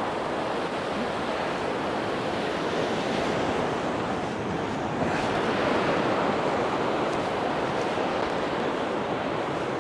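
Sea waves washing steadily onto a pebble beach, with wind on the microphone; the surf grows a little louder about halfway through.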